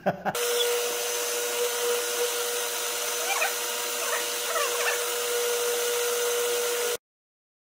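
Drill press running with a steady hum and one held mid-pitched tone as its bit bores into a plywood plate, with a few short rising squeaks near the middle. The sound stops abruptly about seven seconds in.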